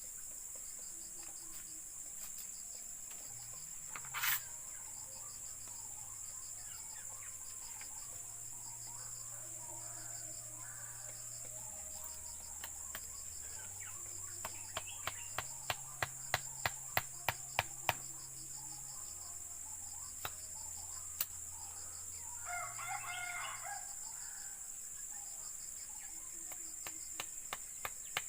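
Steady high drone of crickets, with a rooster crowing once after the middle. A quick run of sharp knocks comes just past the middle, with a single knock earlier.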